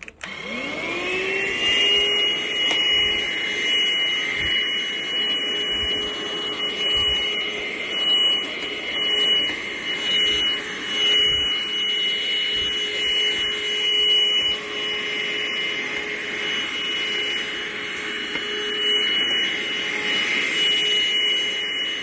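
Cordless stick vacuum cleaner switching on, its motor spinning up with a rising whine over the first second or two, then running steadily with a high whine and a rush of air. The loudness swells and dips as the floor head is moved around.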